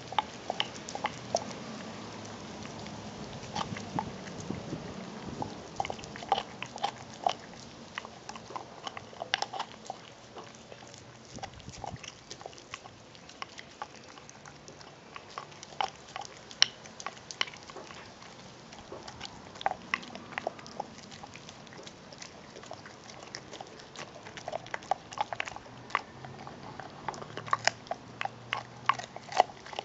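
American Pit Bull Terrier chewing a raw meaty bone on concrete. Irregular sharp crunches and bites come in clusters of several a second, with short pauses between.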